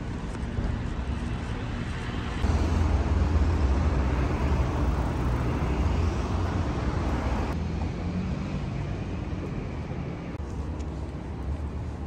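Outdoor city ambience: road traffic going by with a steady low rumble. The ambience jumps abruptly in level about two and a half seconds in, falls back around seven and a half seconds, and changes again near ten and a half seconds.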